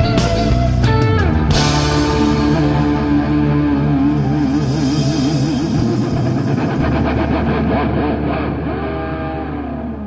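Closing bars of a lyrical jazz-rock song: about a second and a half in, the band strikes a final chord and holds it over a steady bass note, with one note wavering, as it slowly fades.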